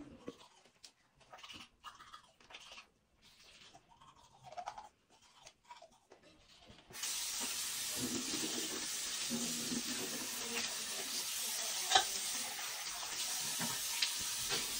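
Toothbrush scrubbing faintly against teeth. About halfway in a tap is turned on and water runs steadily into the sink, with a single sharp knock near the end.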